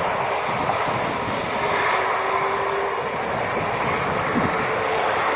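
Jet engines of an Airbus A350-900, Rolls-Royce Trent XWBs, running steadily with an even rushing noise.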